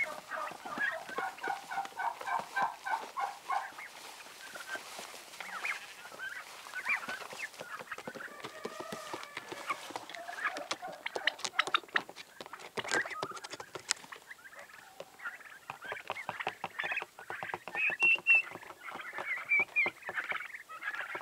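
Flock of young domestic turkeys calling with repeated peeping, chirping calls, a busy run of them in the first few seconds and higher calls near the end. Many short sharp clicks and taps sound through the second half.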